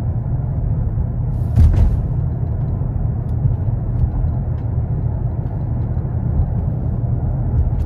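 Steady low road and engine rumble inside a moving car's cabin, with one brief thump or rustle about a second and a half in.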